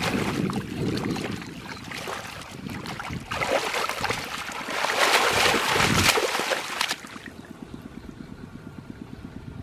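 Hands splashing and churning through shallow muddy water while digging in the mud for fish, coming in uneven surges, then dropping to fainter sloshing about seven seconds in.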